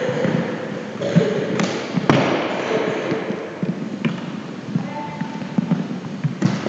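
Floorball play: sticks and a plastic ball knocking in an echoing sports hall, with a sharp hit about two seconds in and another near the end.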